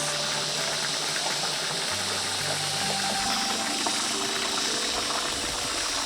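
Background music of long held low notes that change pitch every second or two, over a steady rushing noise like running water.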